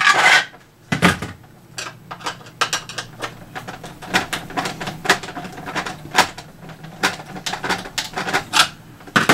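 Hard plastic parts of a toy blaster knocking and clicking as a 3D-printed top piece is unscrewed with a small hex key and handled. Two louder knocks come in the first second, followed by many small, irregular clicks.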